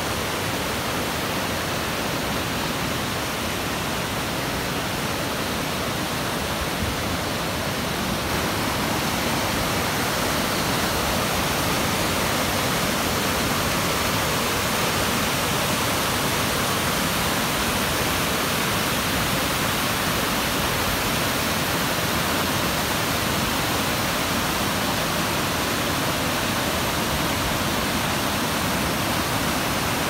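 Waterfall and whitewater rapids pouring over boulders: a steady rush of falling water, a little louder from about eight seconds in.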